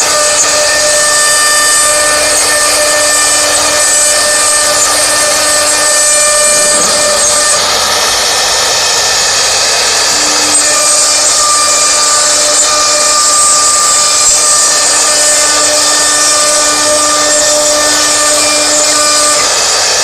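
CNC router spindle running with its small bit routing grooves into a wood panel: a loud, steady whine with several held tones over the hiss of cutting. The lowest of the tones drops away about six seconds in and returns about ten seconds in.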